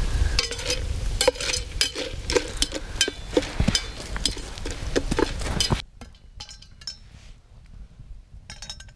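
Popcorn kernels being stirred in a stainless-steel billy can over campfire coals, the utensil clinking and scraping against the metal pot in quick irregular strokes. About six seconds in this stops abruptly and gives way to a quieter stretch of faint small clicks.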